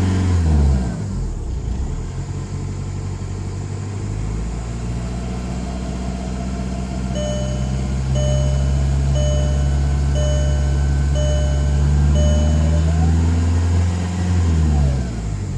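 Volkswagen MkIV 1.9 TDI diesel four-cylinder (BEW) running: the revs drop at the start, then it is held at a raised speed, revs up again near the end and drops back. A short electronic beep sounds six times, about once a second, in the middle.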